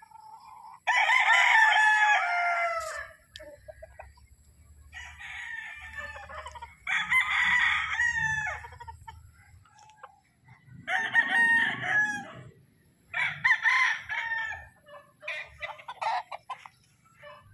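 Gamefowl roosters crowing over and over, about six crows of one to two seconds each, several roosters taking turns.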